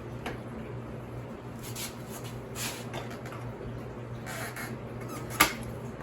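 Scattered light clicks and short scrapes of tools and motorcycle parts being handled during disassembly, with one sharp click near the end, over a steady low hum.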